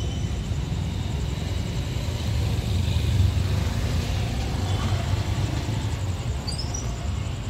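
Steady low outdoor rumble of an urban background, with a few faint short high chirps in the second half.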